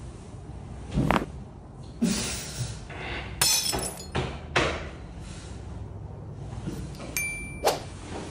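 A series of sharp cracks and pops from joints being manipulated during chiropractic adjustments, the loudest about a second in and near the end.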